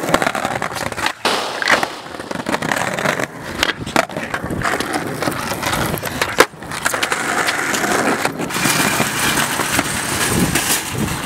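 Skateboard wheels rolling on wet asphalt, with several sharp clacks of the board popping and landing during flatground tricks.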